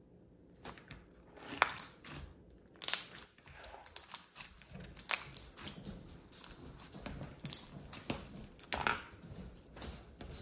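A translucent red slime with dark bits mixed in is stretched, pressed and squeezed by hand. After a short quiet start it gives irregular sticky crackles and pops, with a few louder snaps.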